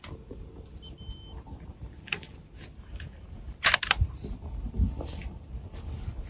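Bolt-action rifle being handled, with a tight cluster of sharp clicks about three and a half seconds in, as from the bolt being worked, and lighter clicks, rustles and a couple of soft thumps around it.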